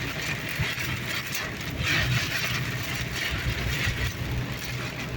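Steady road and engine noise heard inside a moving car's cabin, with a hiss that swells and fades a couple of times.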